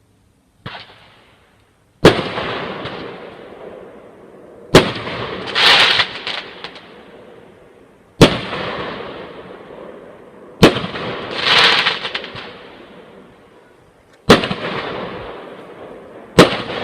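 Fireworks exploding: a small pop, then six loud bangs every two to four seconds, each trailing off in a long fading rumble. Three of the bangs are followed about a second later by a crackling burst.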